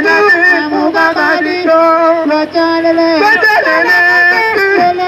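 Voices singing a Yao dance song together, with held notes and slides between them.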